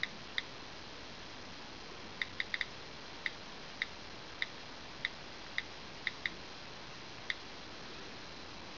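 iPhone 4 on-screen keyboard key clicks as a search is typed on the touchscreen: about a dozen short, high clicks at an uneven pace, with a quick run of three about two seconds in. The clicks stop about a second and a half before the end, leaving a steady hiss.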